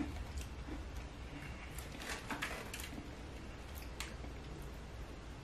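Faint, irregular crunching of a person chewing a crisp Mexican shortbread cookie with the mouth closed, with a small run of crunches about two seconds in and a sharper one near four seconds.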